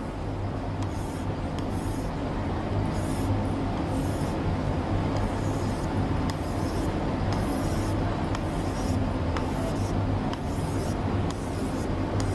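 Writing strokes: a writing tip scratching across a surface in short, irregular strokes as something is drawn and written, over a steady low hum.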